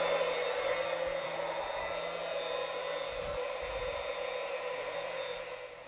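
Small electric utility pump running steadily, draining a water heater tank through a garden hose; a continuous whirring hiss that eases off slightly toward the end.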